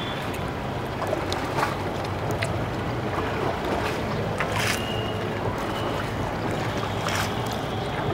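Steady wash of water and wind around a shikara (a hand-paddled wooden boat) moving across a lake, with a few brief sharp sounds scattered through it.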